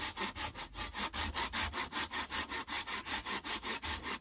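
A hand saw cutting with rapid, even back-and-forth strokes, about six a second, keeping up a steady rasping rhythm.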